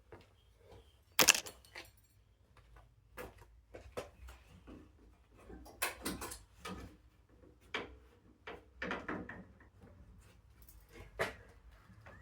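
Scattered knocks, clicks and clunks of hard objects being handled, with one sharp, loud knock about a second in.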